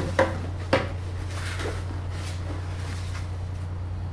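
Hands unpacking a drone accessory box: two sharp knocks about half a second apart, then faint rustling of packaging, over a steady low hum.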